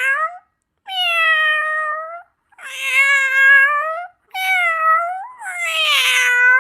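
Domestic cat meowing: a series of long, drawn-out meows, each a second or more, the last one the longest with a wobble in its pitch.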